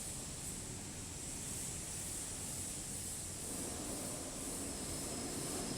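Steady factory background noise: a low rumble under an even high-pitched hiss, with no distinct machine events.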